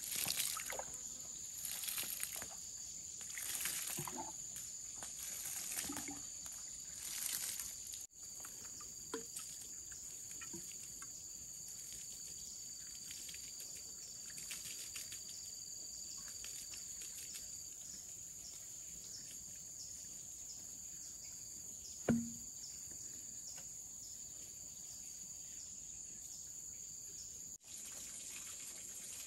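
Water poured from a bamboo tube splashing onto ash-covered ground, in five or six spurts over the first eight seconds. A steady high insect drone runs underneath, with a single sharp knock about two-thirds of the way through.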